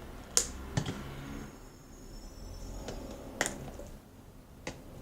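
Four sharp clicks and taps from handling the plastic slime-making containers, lid and contact-lens solution bottle, spread unevenly over a few seconds.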